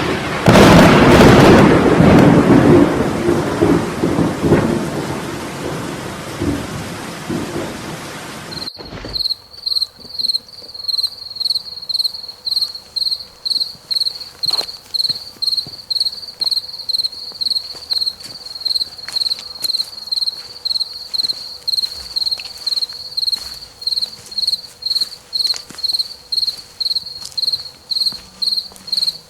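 A loud thunderclap with rain, its rumble dying away over several seconds. It then cuts off abruptly to a single cricket chirping steadily and high-pitched, about twice a second.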